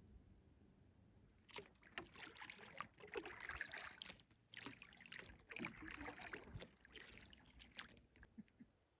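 Kayak paddle strokes in water, faint splashing and dripping. They start about a second and a half in and die away near the end.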